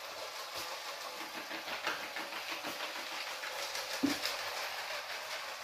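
Motorised clip-brick model railbus, a Bluebrixx VT 98, running along plastic brick track. Its wheels click irregularly over the rail joints and points under a steady running hum, with one louder knock about four seconds in.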